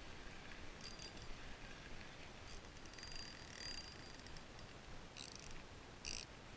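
Faint clicks and light rustling from handling a spinning rod and reel, scattered irregularly over a low background hiss.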